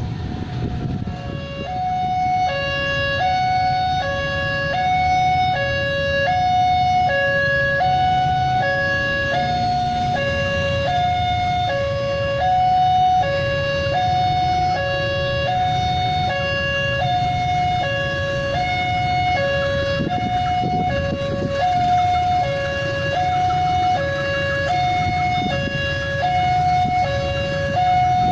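Electronic two-tone warning alarm of a railway level crossing, sounding a regular high-low-high-low pattern with each note lasting a little over half a second, over a low rumble of traffic or engines.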